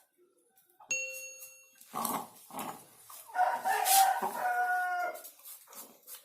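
A rooster crowing once, a call of about two seconds in the second half. It is preceded, about a second in, by a single bell-like ding that rings for nearly a second.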